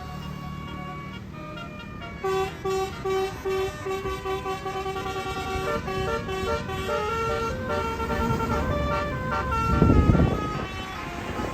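A bus's Basuri telolet multi-tone air horn plays a melody of short, repeated notes starting about two seconds in. The notes come faster and climb higher toward the end, over the bus engine's low hum, with a loud rumble near the end.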